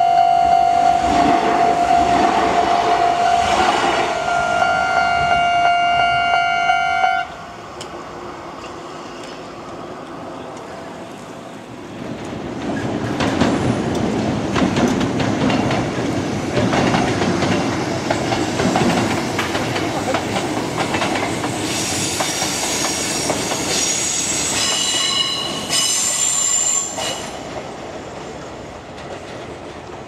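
A Kintetsu electric train passes a level crossing while the crossing alarm rings a steady high tone, which cuts off suddenly about seven seconds in. After a few quieter seconds, a train rolls through a rail yard with its wheels clacking over rail joints, and high wheel squeal on the curves for several seconds near the end.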